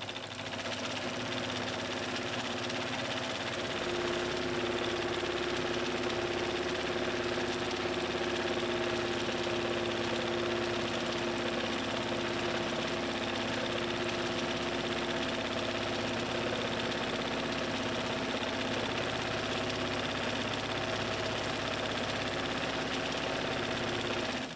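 A 1957 Necchi Supernova Automatica electric sewing machine running steadily, stitching a cam-driven decorative pattern. It starts and picks up speed about four seconds in, then keeps an even pace.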